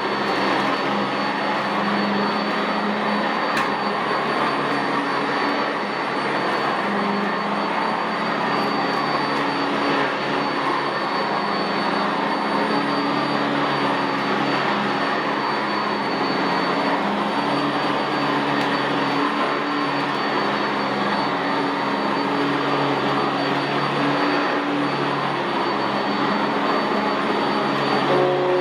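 Sanitaire SC679J commercial upright vacuum running on carpet: a steady rush of air with a thin high whine over it and a lower motor hum that shifts in pitch as it is pushed along.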